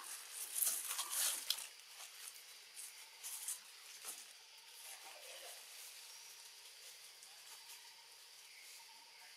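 Quiet outdoor ambience among tree foliage: a few short rustling or scratching sounds in the first two seconds and a couple more around three to four seconds in, then a faint steady high hiss.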